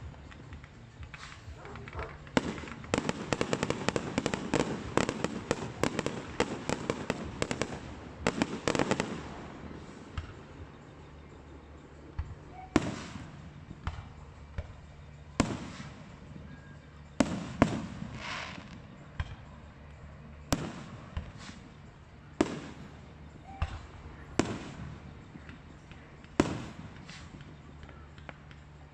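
Aerial fireworks going off: a fast run of crackling bangs for several seconds, then separate single bangs every second or two, over a steady low hum.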